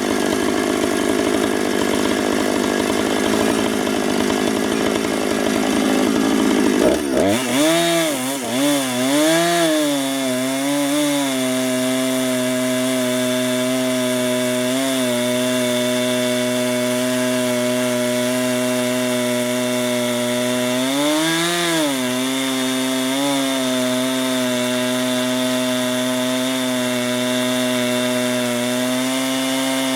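Husqvarna Rancher 455 two-stroke chainsaw with a 24-inch bar and ripping chain, running at full throttle while ripping a log lengthwise in a chainsaw mill. The sound is coarse and rasping at first. About seven seconds in the engine note turns clear, wavers up and down for a few seconds and then holds steady, with a brief rise in pitch again about twenty seconds in.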